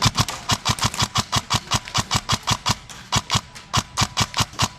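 Specna Arms E26 MK18 airsoft electric rifle firing rapid semi-automatic shots, about five a second, with a brief pause a little past the middle.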